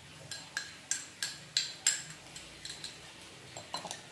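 Metal spoon clinking against a small glass jar while cheese is scooped out: a string of about ten sharp clinks, the loudest in the first two seconds.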